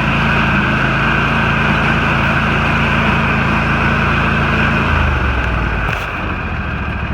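Husqvarna lawn tractor's engine running steadily, then dropping to a lower, quieter note about five seconds in as it is throttled back toward idle.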